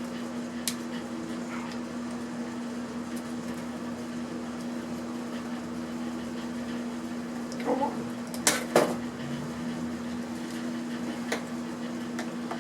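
Screws being backed out of an electronic device's casing with a hand screwdriver: a few small clicks and clinks, loudest in a cluster about eight seconds in, over a steady low hum.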